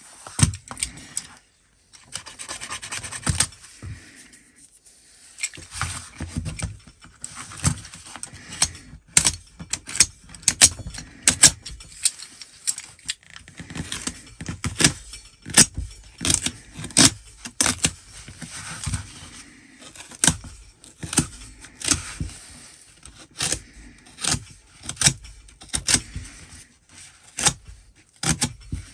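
Snap-off utility knife blade cutting and scraping through a Filofax's fabric-covered cover, in short sharp strokes about one or two a second, each a brief scrape, with a few short pauses early on.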